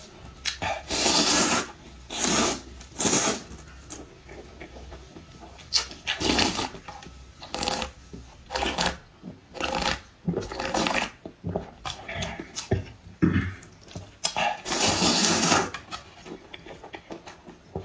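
A person slurping noodles from a bowl of broth: about a dozen noisy slurps, each under a second to about a second and a half long, with the longest near the end and short quieter gaps between them.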